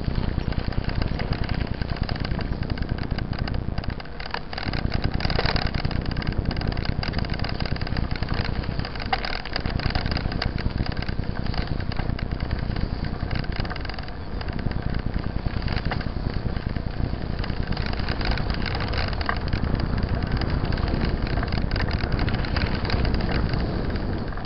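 Mountain bike rolling over a wet gravel and dirt track: a continuous rumbling, rattling ride noise from the tyres and bike. It eases briefly a few times, around 4, 9 and 14 seconds in.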